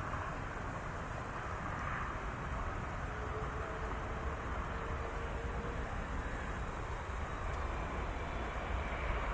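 Steady distant rumble of aircraft engines, with the low rumble building toward the end as a plane draws nearer.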